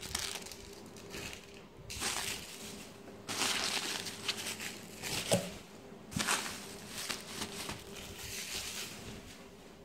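Plastic packaging and bubble wrap crinkling and rustling as they are handled and shifted inside a cardboard box, in several separate bursts.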